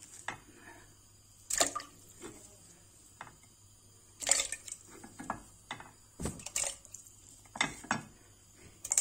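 Cubes of raw meat dropped one at a time into water in a pressure cooker, each landing with a short wet plop or splash, about ten times at uneven intervals.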